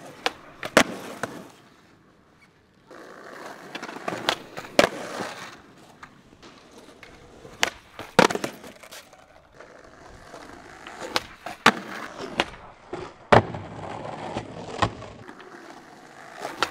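Skateboard wheels rolling on concrete, broken by sharp cracks of the board popping and landing as several tricks are tried on a concrete ledge.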